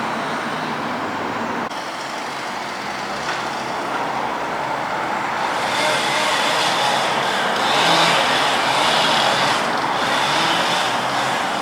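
Steady road traffic noise, growing a little louder about halfway through.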